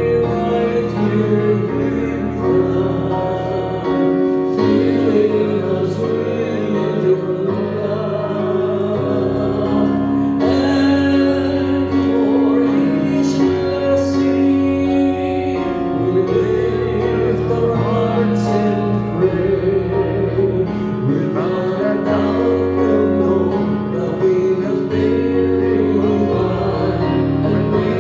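Worship music: singing over keyboard accompaniment, with held chords and a steady bass line.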